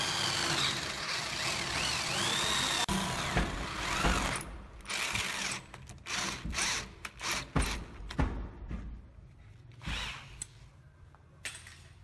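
Corded electric drill boring into a wooden door, its whine rising and falling. It runs steadily for about four seconds, then in short stop-start bursts that get quieter toward the end.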